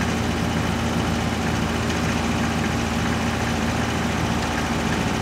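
Mini excavator's engine idling steadily while it holds a suspended engine on its boom, a constant low hum without changes in speed.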